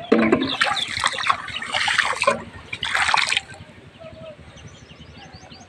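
Water splashing and trickling as hands and a plastic bottle fish trap are worked in shallow muddy water. The splashing is busy for the first three seconds or so, then drops away.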